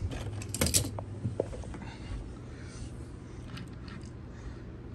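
Small toy vehicles being handled on a hard floor: a quick cluster of sharp clicks and knocks about half a second in, a few lighter taps after, then faint rattling.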